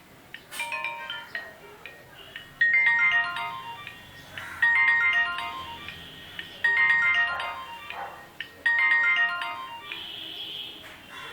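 Nokia C1-00 ringtone playing through the phone's small speaker: a short melodic phrase of bright electronic notes that repeats about every two seconds, ending in a held high note.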